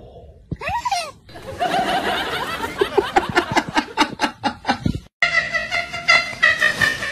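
A person laughing in quick, repeated bursts from about a second in until it cuts off abruptly near five seconds. It is preceded by one short rising-and-falling call.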